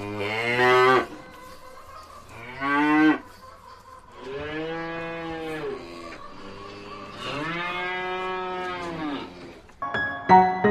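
Cow mooing four times: two shorter calls, then two long, drawn-out moos. Piano music comes in near the end.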